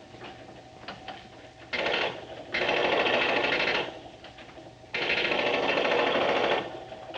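Rapid rattling machine-gun fire in three bursts of one to two seconds, with a fourth burst starting right at the end.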